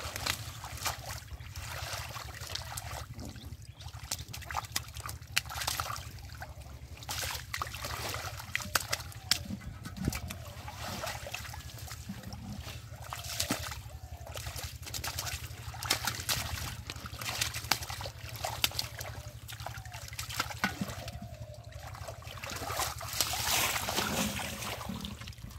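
Shallow muddy water sloshing and trickling as hands dig through mud and water hyacinth roots, with many small sharp splashes and a louder stretch of splashing near the end.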